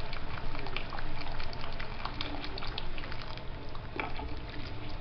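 Hot water bubbling, with a steady patter of many small irregular pops and crackles.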